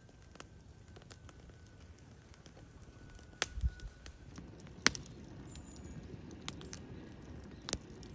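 A few sharp, isolated clicks and knocks over low rustling handling noise.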